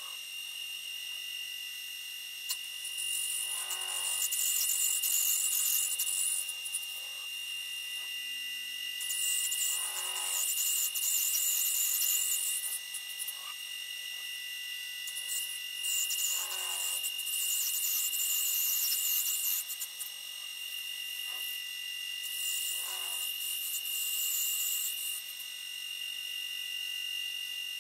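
A small DIY lathe built on a CNC rotary axis, its spindle running with a steady high whine while a cutting tool turns a brass rod. Four hissing stretches of a few seconds each come about every six seconds as the tool shaves the brass.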